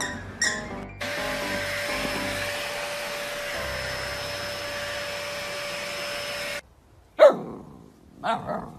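Vacuum cleaner running steadily with a constant whine for about five seconds, then cutting off suddenly. Then comes a sharp high bark from a husky puppy, the loudest sound, falling in pitch, followed by two shorter barks near the end.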